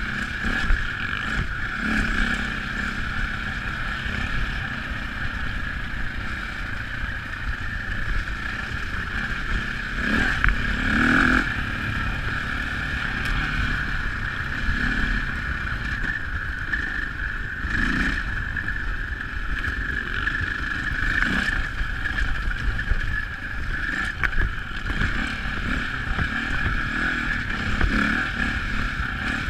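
KTM dirt bike engine running continuously under way on a gravel track, with a low rumble and a few brief louder surges along the way.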